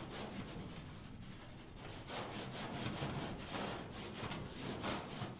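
Sidewalk chalk rubbed on its side back and forth over chalkboard paint on a tin door, seasoning a new chalkboard: rapid rubbing strokes, about three a second, lighter for a while from about half a second to two seconds in.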